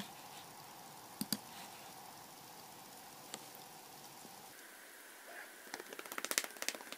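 A hand patting a cat's body in a quick run of light taps, about ten a second, near the end, after a few single taps earlier on.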